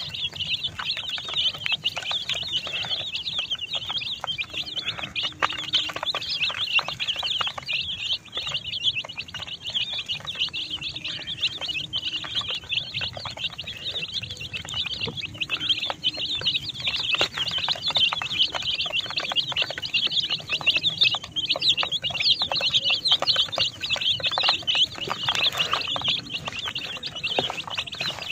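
A flock of baby chicks peeping without pause, many high, short cheeps overlapping.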